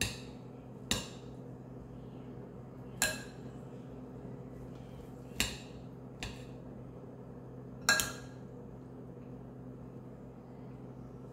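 A metal spoon clinking against a dish of broccoli salad: about six sharp, ringing clinks at uneven intervals over the first eight seconds, with a steady low hum underneath.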